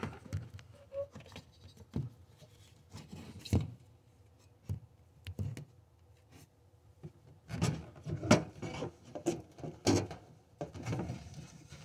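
Scattered knocks, clicks and rubbing from work on the tub drain parts, with the sharpest knocks about eight and ten seconds in.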